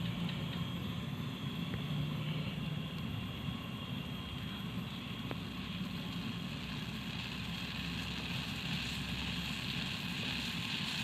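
Pot of water heating on a stove: a steady rushing noise with a low hum, and a higher hiss that grows stronger over the last few seconds as the water nears the boil.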